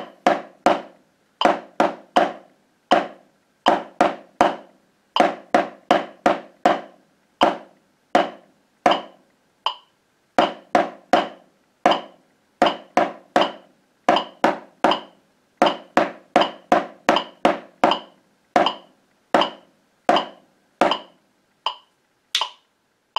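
Wooden drumsticks playing a quarter- and eighth-note rhythm on a drum practice pad, along with a metronome at 80 beats per minute, about one beat every three-quarters of a second. The strokes stop just before the end.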